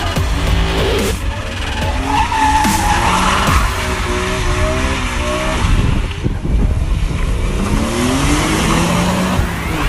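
Car doing a burnout: the engine revs up and down while the spinning rear tyres squeal and skid on the asphalt.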